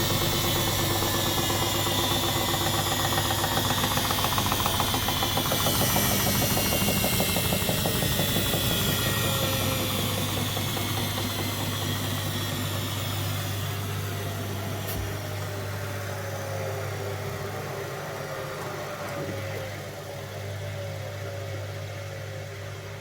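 Front-loading washing machine's belt-driven motor and drum running down from speed: a whine that slides steadily lower in pitch and fades, over a steady low hum.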